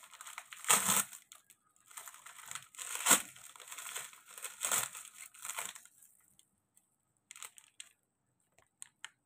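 White paper gift wrapping being torn and crumpled by hand, crackling in quick bursts for about six seconds as a small packet is unwrapped. After that it goes mostly quiet, with a few faint rustles near the end.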